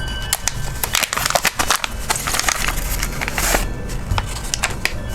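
Packaging being handled and pulled open: irregular crinkling and crackling with many small clicks, busiest in the middle.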